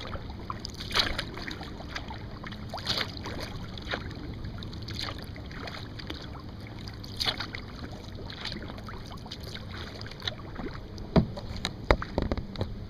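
Kayak paddle strokes, the blades dipping and splashing in the water about every two seconds over a steady low rumble, with a few sharper knocks near the end.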